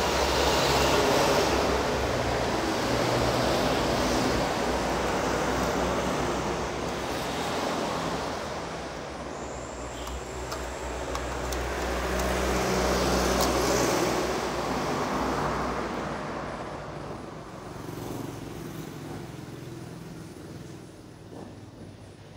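Road traffic going by: a wash of vehicle noise with a low engine rumble, louder near the start and again about 13 seconds in, then fading toward the end.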